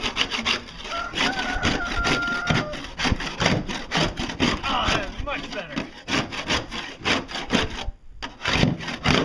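Solid stainless steel barnacle scraper scraping barnacles off a fiberglass boat hull in quick, repeated strokes, with a brief pause near the end.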